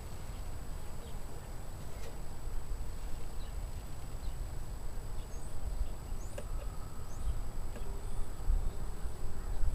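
Outdoor background: a low rumbling noise with faint, short, high bird chirps scattered through the middle and later part, and one light tap about two seconds in.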